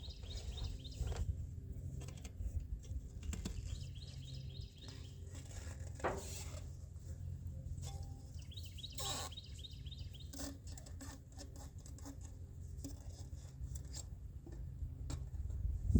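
Light scattered clicks and taps of hand work on parts, over a low steady hum, with a bird's short chirping trill heard three times.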